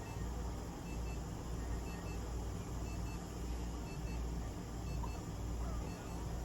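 Pairs of short, high electronic beeps repeating about once a second over a steady low hum.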